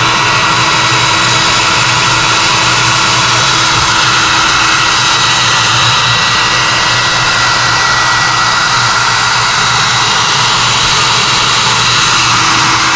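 Handheld hair dryer running steadily, blowing air onto the iced-up indoor coil of a heat pump to thaw it, a constant whoosh with a thin high whine.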